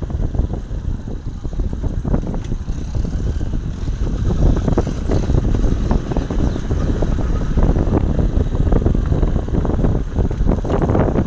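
Motorcycle on the move, its engine rumble mixed with heavy wind buffeting on the microphone.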